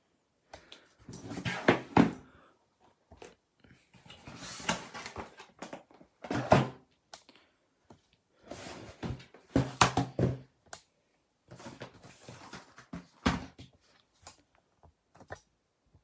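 Cardboard product boxes being handled, slid and set down on a wooden desk: several clusters of thunks and scraping rubs with short pauses between them.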